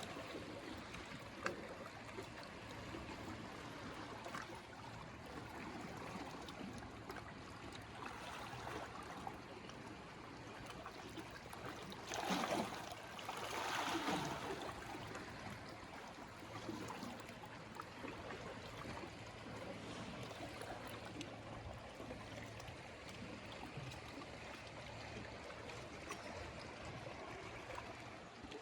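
Calm sea water lapping and trickling at the shoreline, with one louder wash of a small wave about halfway through.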